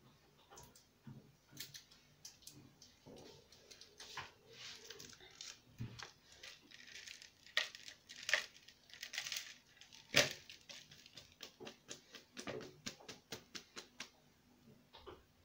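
Hands crumbling and stirring dry broken rice vermicelli in a plastic bowl: a quick run of small crackles and clicks with rustling. One sharp click stands out about ten seconds in.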